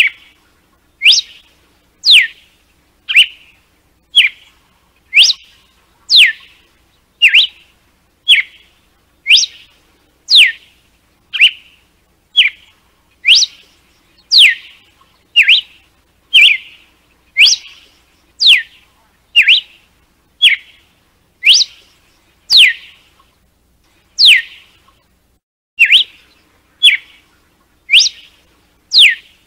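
Red-cowled cardinal singing its 'açoite' (whip) song: sharp whistled notes about once a second, most sweeping steeply down in pitch, mixed with shorter, level notes.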